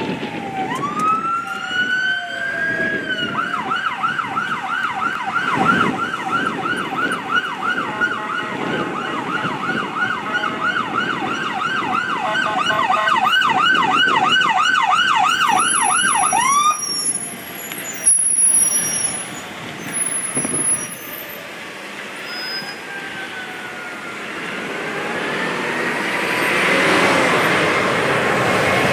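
Electronic siren on a fire department battalion chief's SUV: a rising wail that switches to a fast yelp, about three sweeps a second, then cuts off suddenly a little past halfway. After traffic noise, a second siren wails more faintly and grows louder near the end as another emergency vehicle approaches.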